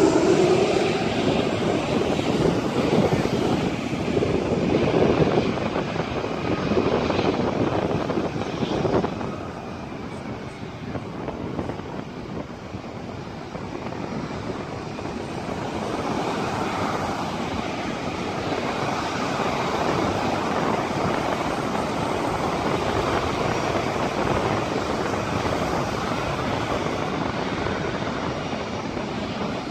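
Engine noise of a landing aircraft that has just passed low overhead, fading over the first nine seconds or so, followed by a steady, quieter rumble.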